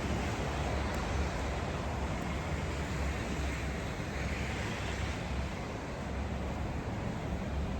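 Snowstorm city street ambience: a steady hiss and rumble of traffic on a snowy street, with a low rumble from wind on the microphone. The hiss swells briefly about four seconds in, as of a vehicle passing.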